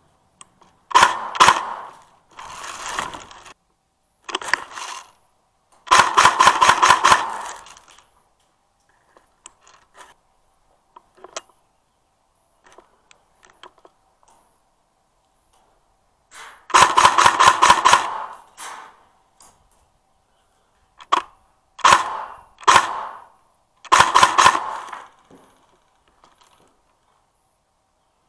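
Airsoft electric rifle, a G&G M14 EBR, firing BBs in several rapid strings of shots, with a few shorter bursts and single shots near the end.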